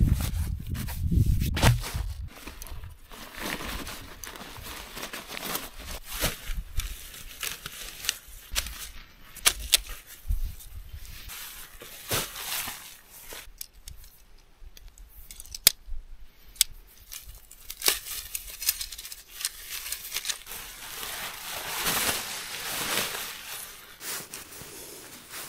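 Nylon tent fabric and stuff sacks rustling and crinkling as a lightweight backpacking tent is unpacked and shaken out, with scattered sharp clicks and knocks of poles and pegs being handled.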